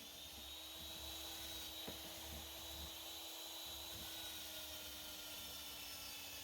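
Antique electric power drill running steadily, its motor giving a constant hum, with a single faint knock about two seconds in.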